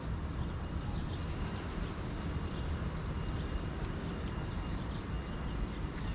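Steady low rumble of outdoor background noise, with faint short high chirps over it.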